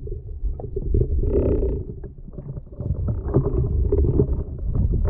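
Muffled underwater rumbling picked up through a waterproof camera housing as a diver swims along the seabed, swelling and fading with the water's movement. A brief muffled pitched sound comes about a second and a half in.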